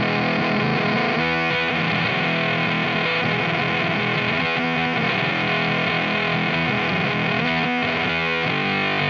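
Electric guitar played through a Teisco Fuzz pedal with its octave off: thick, heavily fuzzed sustained notes and chords that ring on, changing a few times.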